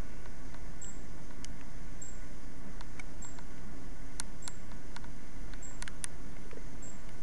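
A short, very high chirp repeating about once a second, with scattered sharp clicks over a steady low hum.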